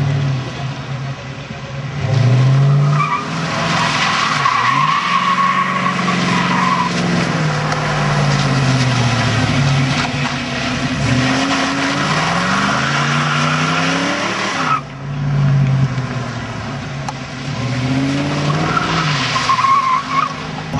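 Ford Mustang 5.0-litre V8 revving up and down over and over as the car spins donuts, with the rear tires squealing and skidding across the pavement. The squeal is strongest a few seconds in and again near the end.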